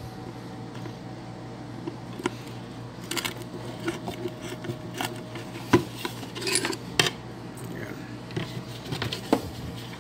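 Scattered light clicks and knocks as a homemade lampshade with a lamp socket fitted in it is handled and turned over on a table, with the sharpest knocks about six, seven and nine seconds in, over a steady low hum.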